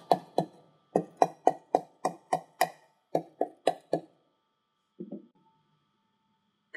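A mallet striking the outside of a metal concrete air-meter bowl, about thirteen sharp knocks in four seconds in three quick runs. This consolidates a freshly rodded lift of concrete to release entrapped air before the pressure-method air test. A short, softer noise follows about a second later.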